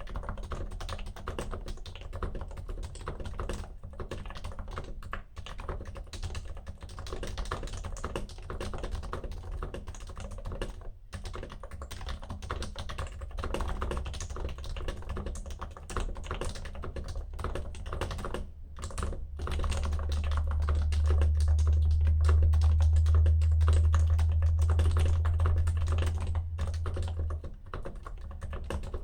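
Continuous fast typing on an HHKB keyboard with silenced Topre switches, keystrokes coming in a steady stream with a couple of brief pauses. About two-thirds of the way through, a loud low rumble comes in for several seconds under the typing, then stops.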